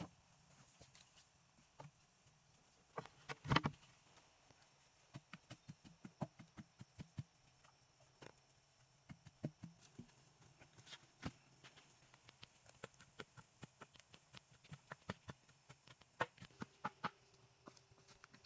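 Faint, irregular light taps and clicks, with a louder cluster of knocks about three and a half seconds in.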